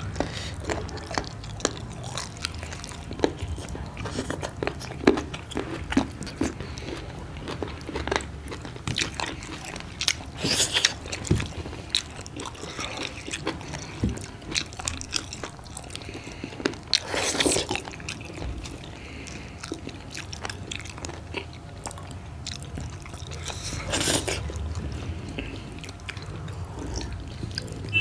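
Close-up mukbang eating sounds: chewing and mouth smacking as wheat dhido with curry and greens is eaten by hand, with small clicks of fingers and food against steel plates and bowls. A few louder, longer noises come about 11, 17 and 24 seconds in.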